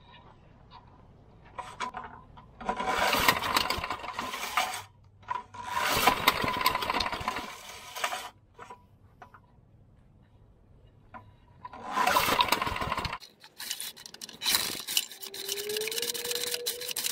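Recoil pull starter on a Briggs and Stratton Quantum lawnmower engine yanked four times, each pull a second or two of cord whir and rattle. The starter is not engaging, so the engine is not turning over.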